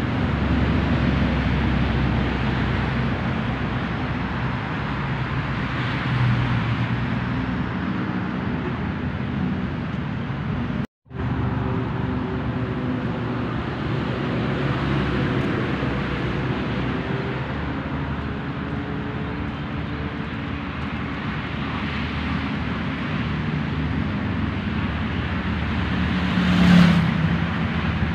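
Steady road traffic noise: a continuous wash of passing cars and their engines. The sound cuts out completely for a moment about eleven seconds in, and a louder vehicle passes near the end.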